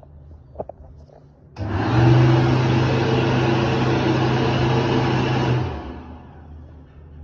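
Electric hand dryer blowing for about four seconds: it starts abruptly with a steady motor hum and air rush, then cuts out and winds down.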